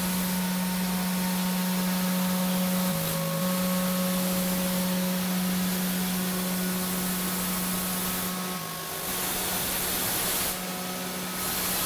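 CNC cutting machine's spindle running with a steady hum, over a constant hiss of cutting and air. The pitch shifts slightly about three seconds in and again near nine seconds.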